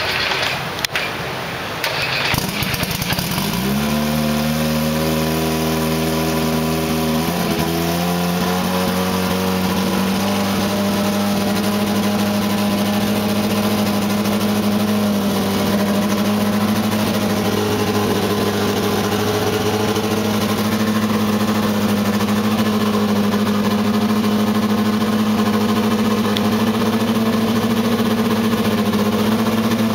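Turbocharged engine of a Benetton Formula One car starting up. It fires about three and a half seconds in, steps up in pitch about seven seconds in, then settles into a steady, loud idle.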